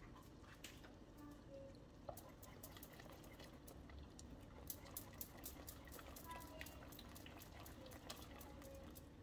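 Silicone-coated whisk stirring thick lentil soup in a pot: faint, irregular wet clicks and liquid sounds that grow busier from about two seconds in.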